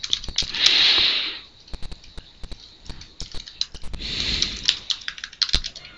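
Computer keyboard typing with mouse clicks: a run of short, irregular key clicks, with two soft hissing sounds, the first about half a second in and the second about four seconds in.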